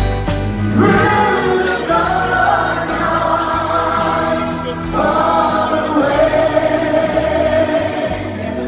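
A vocal group singing together in harmony over music, holding long notes, with a new phrase starting about five seconds in.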